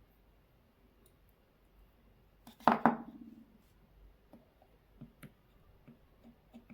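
Bench work on a drill battery pack: a short, sharp double clatter of small metal tools or parts being handled about two and a half seconds in, followed by scattered light clicks.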